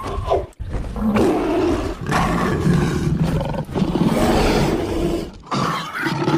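Loud animal roars, about four in a row, each lasting one to two seconds and running into the next.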